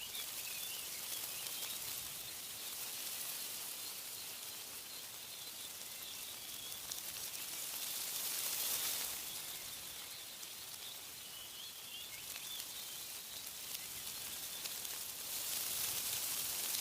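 Wind rustling through tree leaves, swelling in gusts about eight seconds in and again near the end, with faint bird chirps near the start and around twelve seconds in.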